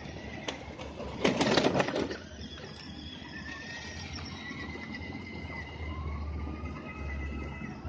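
An off-road vehicle's engine running low and steady, with a loud, rough burst of noise lasting under a second about a second in.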